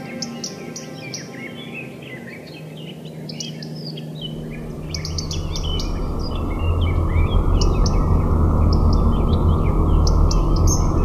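Many songbirds chirping and trilling in quick, short calls. About four seconds in, a low rumble swells in and grows louder beneath them.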